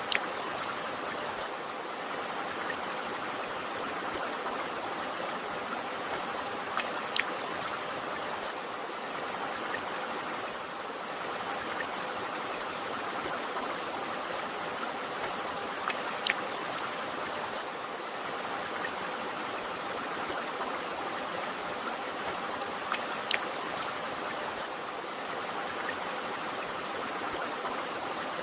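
River water flowing steadily, with a few brief splashes or drips standing out now and then.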